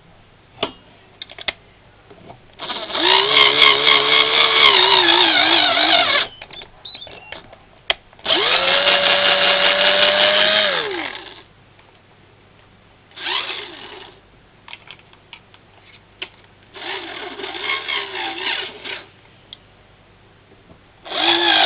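Electric drill running in four short bursts, boring into the cross-threaded exhaust bolt holes of an HPI Baja cylinder head so they can be tapped for 6mm bolts. The motor whine spins up and winds down with each burst, its pitch wavering under load, with light clicks of handling in the pauses and another burst starting at the very end.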